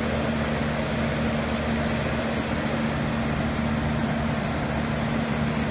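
Steady low mechanical hum with a constant hiss, unchanging throughout: background machine noise in the room.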